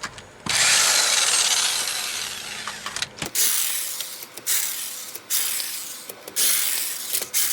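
Loosened lug nuts being spun off the wheel studs with a hand wrench: a long scraping rasp of about three seconds, then several shorter rasps of about a second each.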